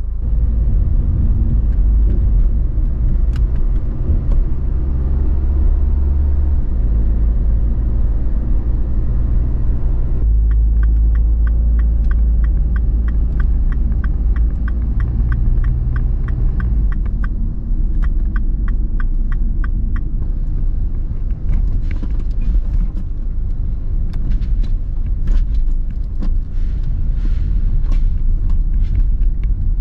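Car being driven in town, heard from inside the cabin: a steady low rumble of engine and road noise. A regular ticking, about three ticks a second, runs for several seconds around the middle.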